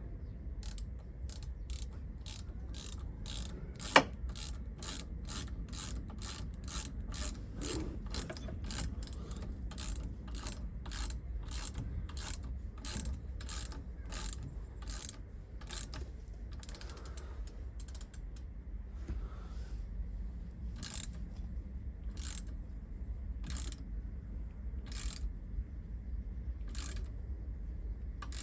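Ratchet wrench clicking as a brake bolt is turned, a quick run of clicks that slows to about one a second later on, with one sharp knock about four seconds in.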